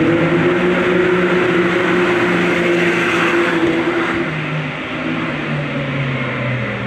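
Rally car engine running hard at high revs; its pitch holds steady, then drops about four seconds in.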